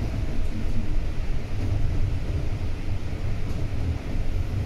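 Volvo B9TL double-decker bus in motion: a steady low engine and road rumble.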